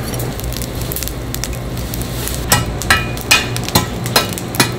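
Steel shovel working through a bed of glowing charcoal: a steady hiss at first, then about six sharp clinks of charcoal and metal, roughly two a second, in the second half.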